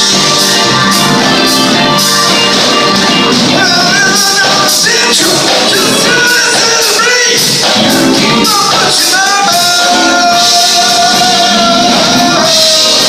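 Live rock band playing a song with singing. A long held note comes in the last few seconds.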